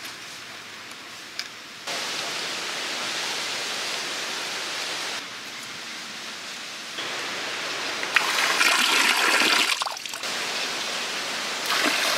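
Rushing, pouring water in several short stretches that start and stop abruptly, loudest about eight seconds in and again near the end.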